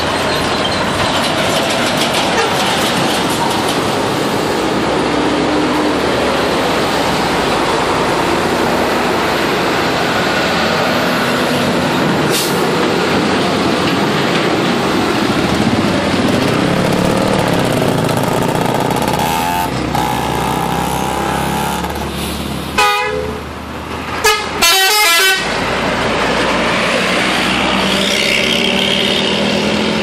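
Road traffic with tour buses and trucks passing, and bus 'telolet' horns sounding their multi-note tunes. The loudest horn blasts come in short bursts about three quarters of the way through.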